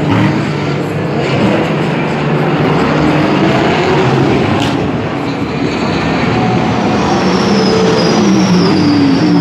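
Racing car engines running hard, several overlapping, with one engine's pitch falling near the end.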